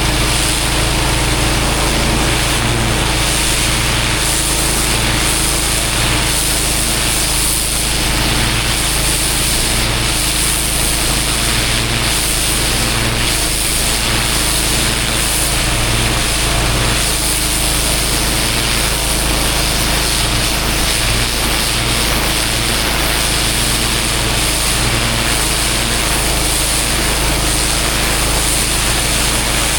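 Pressure washer's engine running steadily, with a low, evenly pulsing tone under the hiss of high-pressure water spraying onto block paving.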